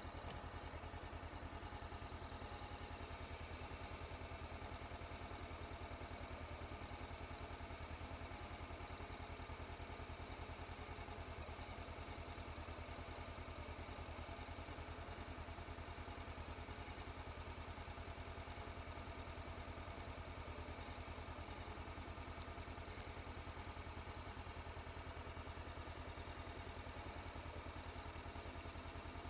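Honda motorcycle engine idling steadily, an even low pulsing that holds unchanged throughout.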